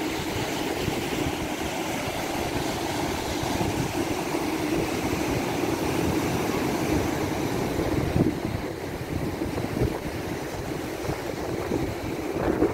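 Surf breaking and washing over a rocky shore, a steady rushing noise, with wind buffeting the microphone.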